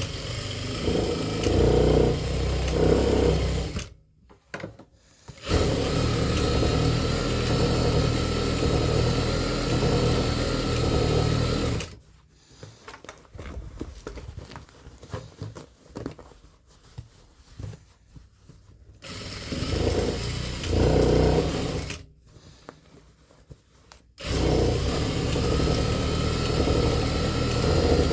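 Sewing machine stitching through denim in runs of several seconds, stopping and starting again four times.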